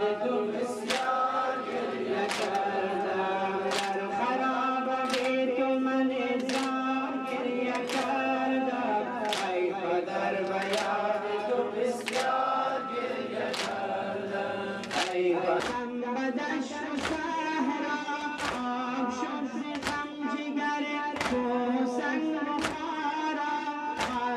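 A group of voices chanting a Muharram mourning lament in unison. A sharp beat comes about every second and a half, then about twice as fast from around the middle onward.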